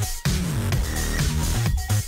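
Electronic dance music with heavy bass and a synth line.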